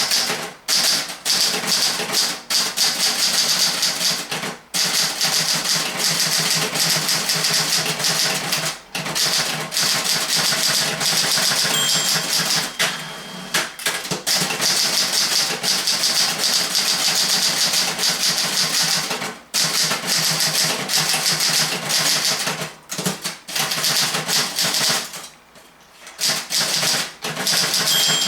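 1958 Olympia SG1 desktop manual typewriter being typed on in fast, steady runs of keystrokes with a few short pauses, its sound-deadening foam removed. A short ringing tone sounds about halfway through and again at the end.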